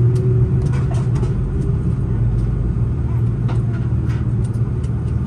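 Airbus A330 cabin noise while taxiing: the jet engines at idle give a steady low rumble heard from inside the cabin, with a few faint clicks and rattles scattered through it.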